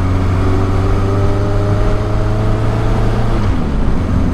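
1983 Suzuki GS 1100E's inline-four engine pulling under way, its pitch slowly rising, then dropping about three and a half seconds in as it is shifted up into fourth gear, over steady wind rush.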